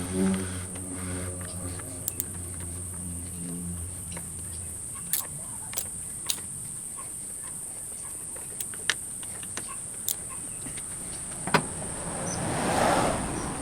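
Hand tools and bolts clicking and tapping on metal while the mounting bolts of a motorcycle rear brake master cylinder are fitted. About ten sharp clicks are scattered irregularly through it. A low droning sound runs for the first few seconds, and a short rustling noise comes near the end.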